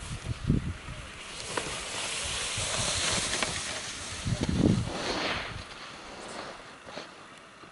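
Skis hissing and scraping over snow as a skier turns past close by, swelling for about four seconds and then fading. There are a few low thumps, one early and one in the middle.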